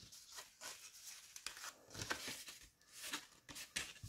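Pink cardstock pouch being handled and shifted on a cutting mat: scattered soft paper rustles and scrapes, with a few louder crinkles about halfway and near the end.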